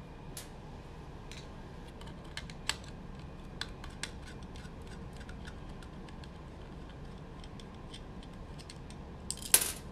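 A nut driver backing out the hex standoffs on a thin steel connector plate: a run of small, irregular clicks and ticks as the tool turns, with one sharper, louder clack a little before the end.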